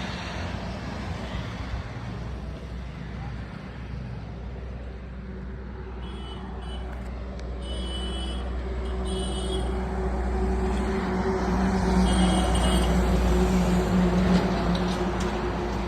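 A motor vehicle's engine running with a steady low rumble that grows louder over the second half, with short high chirps coming and going in the middle.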